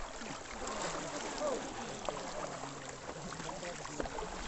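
Water swishing and sloshing as several people wade through a flooded, weedy wetland, with distant voices calling faintly.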